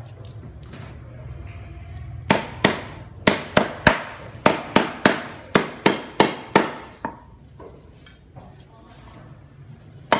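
Cleaver chopping lemongrass stalks on a wooden chopping block: a quick run of sharp knocks, about three a second, starting about two seconds in and stopping about seven seconds in.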